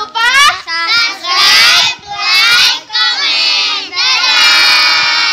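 A group of children singing or chanting together loudly, in several long drawn-out sung syllables, the last one held longest.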